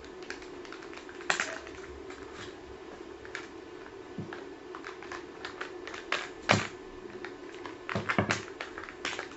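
Scattered clicks, taps and crinkles of plastic candy packaging being handled and opened: plastic egg-shaped sweet containers and wrappers, with scissors at work. The sharpest clicks come about a second in, midway, and in a cluster near the end.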